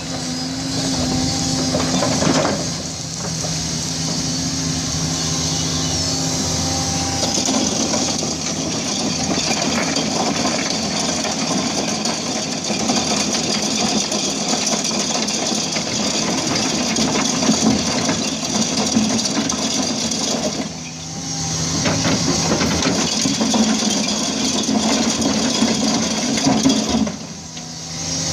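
Excavator diesel engine running under hydraulic load while an ALLU screening bucket's rotating drums sift soil, with earth and stones rattling and clattering through the bucket. The noise dips briefly a few times.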